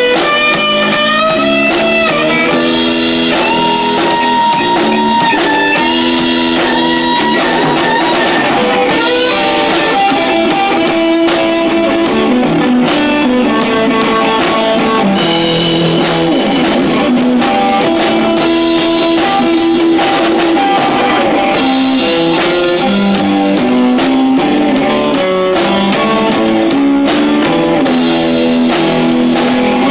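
Live rock band playing: electric guitar, bass guitar and a Pearl drum kit, with the cymbals keeping a steady beat.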